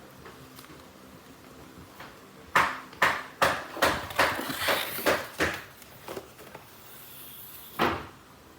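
A quick, irregular run of sharp knocks or clatters, about eight over four seconds starting a couple of seconds in, then one more knock near the end.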